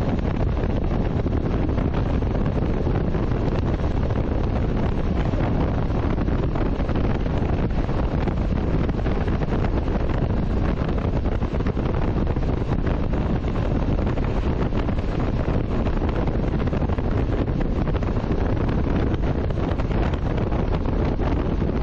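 Steady wind noise rushing over the microphone of a moving motorcycle, a dense low rumble with no breaks.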